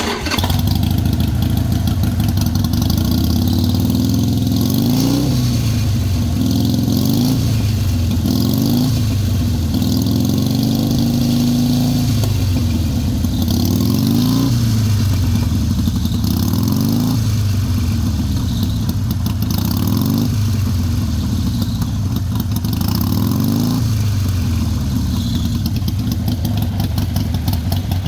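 Harley-Davidson Sportster 883's air-cooled V-twin engine running under way, its pitch repeatedly climbing and dropping as the throttle is opened and eased off.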